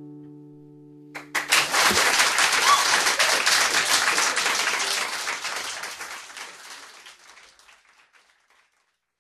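The song's last chord ringing out, then an audience applauding, loud for a few seconds and dying away.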